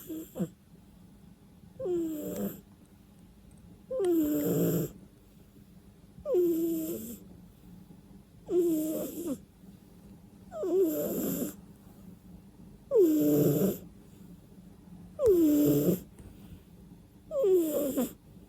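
Sleeping domestic cat snoring, about eight breathy snores at an even pace of one every two seconds or so, each carrying a whistling tone that slides down in pitch.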